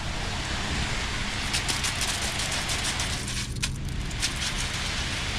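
Concrete pump's 7.3 L Ford gas V8 running steadily at low throttle, with crackling and spattering from about a second and a half in as the priming slurry and air spit out of the hose end.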